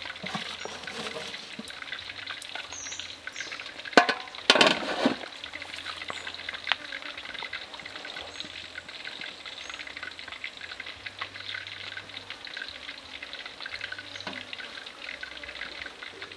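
Steady hiss of water boiling in a large aluminium steamer pot, with loud metal clanks about four to five seconds in as the lid is lifted off.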